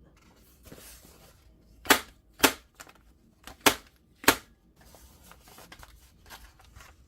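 Bostitch Impulse 30-sheet electric stapler firing, making four sharp clacks: two close together about two seconds in, then two more about a second later.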